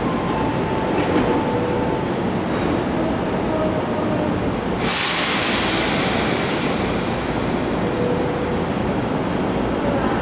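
Izukyu 8000-series electric train standing at the platform with a steady hum. About five seconds in, a sudden loud hiss of air from the pneumatic door engines as the doors close, fading over a few seconds.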